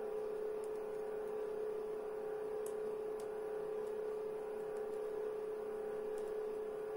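Steady mid-pitched electrical hum, with a few faint light clicks scattered through it.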